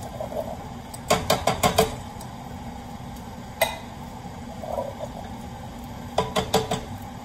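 Metal can of chickpeas knocked against a skillet to empty it into the pan: a quick run of sharp metallic knocks about a second in, a single knock in the middle, and another quick run near the end.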